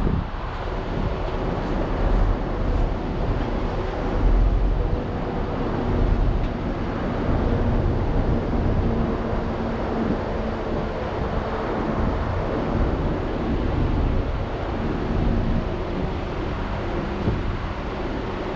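A car driving: steady road and engine noise with a faint steady hum, and wind buffeting the microphone.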